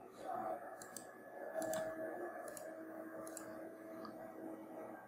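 Faint computer mouse clicks, about four, spaced out.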